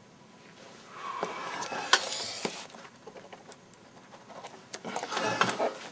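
Pen writing in a paper guest book, with the pages handled: stretches of rustling and scratching and a few sharp clicks, the loudest about two seconds in, with a second stretch of rustling near the end.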